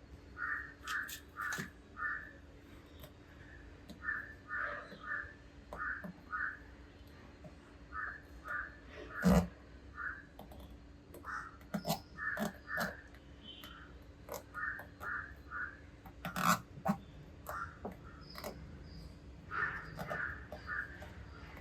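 Crows cawing again and again in quick runs of three or four short calls, with a few sharp clicks or knocks scattered among them, the loudest about nine seconds in, over a faint steady hum.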